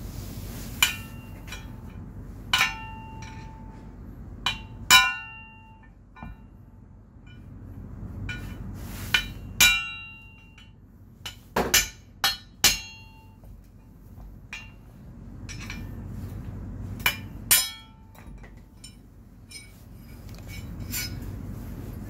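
Hammer striking a steel punch held against a motorcycle steering stem: about fifteen irregular blows, some singly and some in quick runs, each with a short metallic ring.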